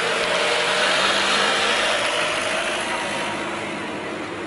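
Engine noise that swells about a second in and then slowly fades.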